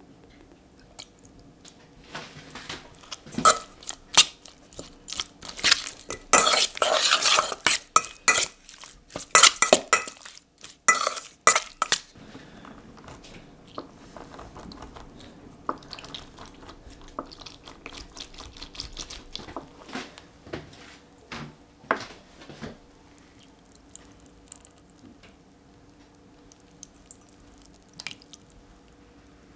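Metal spoon stirring and scraping marinating chicken cubes in a stainless steel bowl: rapid clinks and scrapes, loudest from about six to twelve seconds in. After that come fainter scattered clicks and squelches as half a lemon is squeezed and its juice poured into the bowl.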